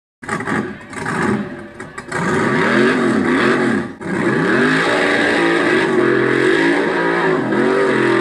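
Scale RC rock crawler's motor and drivetrain whining under throttle, its pitch sweeping up and down repeatedly as the throttle is worked. The sound drops out briefly at the start and cuts sharply about four seconds in.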